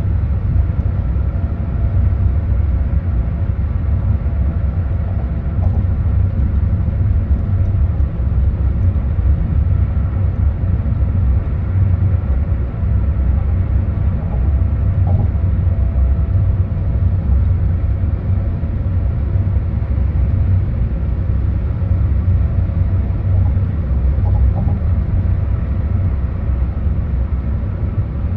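A car travelling at highway speed: a steady low rumble of tyres and road noise, with no change in speed.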